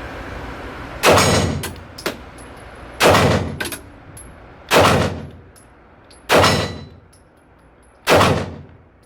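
Five pistol shots from a Smith & Wesson M&P 2.0 Metal, fired at an even pace about one every second and a half to two seconds, each echoing in an indoor range bay. A few faint clicks fall between the first shots.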